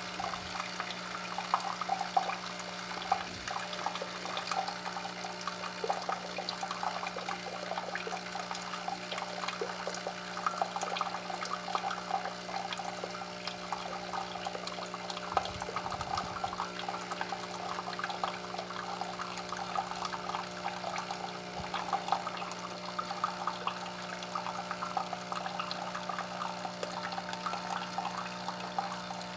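Bunn My Cafe single-serve coffee maker running a brew cycle: water moving and heating inside the machine, a constant crackling wash of water over a steady low hum.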